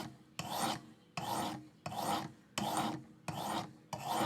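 A sharpening stone on a Work Sharp Precision guided sharpener rasping along an S35VN steel knife blade in regular strokes, about six strokes at an even pace. This is the early coarse work of raising the first burr on hard steel.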